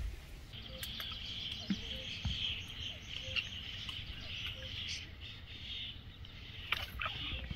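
Steady high-pitched chirring of insects, starting about half a second in and stopping near the end, over a low rumble.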